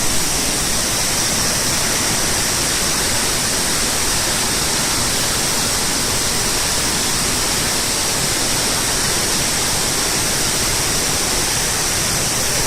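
Waterfall rushing and splashing, a steady, unbroken roar of falling water.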